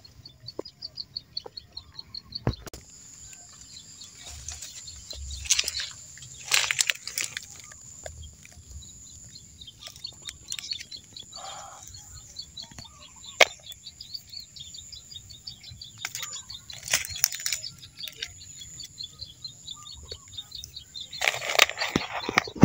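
Dry leaves and twigs rustling and crackling in several bursts, loudest near the end, over a steady thin high-pitched drone and rows of quick high chirps from wildlife.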